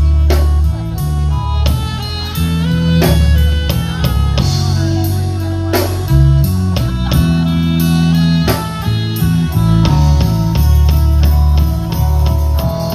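A band playing an instrumental passage: guitar lines over bass and drum kit.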